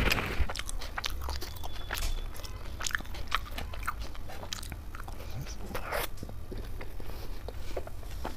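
Close-miked eating: a person chewing soft roti dipped in gravy, with many short wet mouth clicks and smacks.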